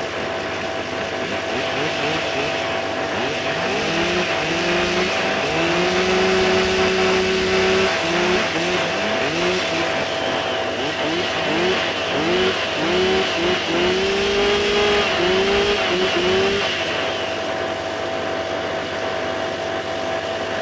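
Several two-stroke engines, chainsaws among them, running together at idle, while one chainsaw's throttle is blipped over and over in short revs with a few longer held revs, from about four seconds in until about seventeen seconds, after which the engines settle back to a steady idle.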